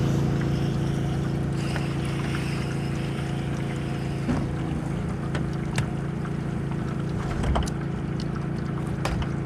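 Pressure washer engine running steadily at a constant speed, with a few short sharp clicks or knocks over it.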